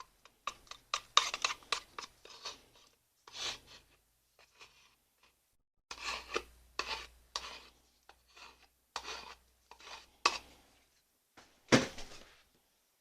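A tool stirring thick acrylic paint in its container: bursts of scraping and clicking against the sides, with a sharper knock near the end.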